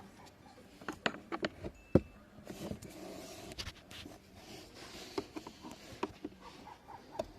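Hands working the car's interior plastic trim and filter housing for a cabin filter change: a string of sharp plastic clicks and knocks, the loudest about two seconds in, with soft rustling in the middle and more clicks near the end.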